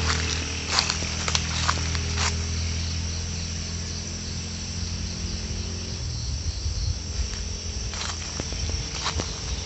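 Insects buzzing steadily at a high pitch. Under them a distant motor engine hums until it stops about six seconds in. Scattered crunches of footsteps on dry fallen leaves come through.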